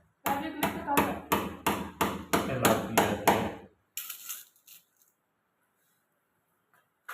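A hammer striking in a quick, even rhythm, about three blows a second, about ten in all; it stops a little past halfway. A few lighter taps follow, then quiet.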